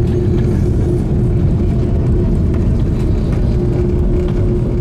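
Airliner cabin noise inside an Airbus A330-200: a steady, loud low rumble of engines and airflow with a constant hum running through it.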